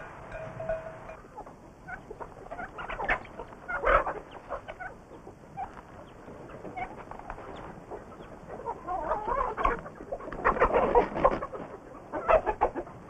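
A flock of chickens clucking and squawking in irregular bursts, with the busiest spells late on, as the hens crowd around for feed scattered from a bucket.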